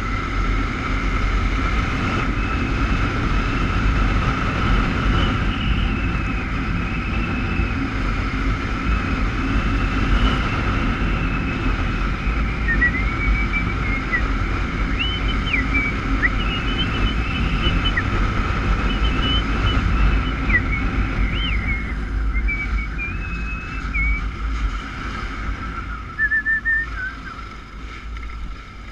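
Motorcycle engine running steadily under way, with road and wind rush, and short high whistling glides in the middle stretch; the engine eases off near the end.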